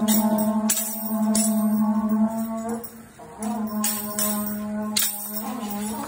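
Conch-shell trumpets (horagai) blown in long held notes, with a breath break a little before the middle, over sharp metallic jingles struck every half second or so.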